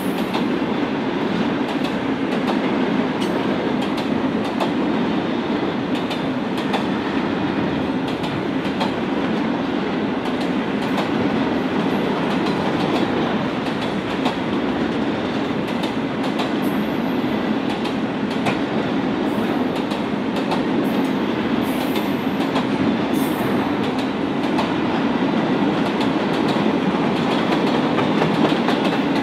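Freight train's container flat wagons rolling past at about 40 km/h: a steady rumble of steel wheels on rail with irregular clicks.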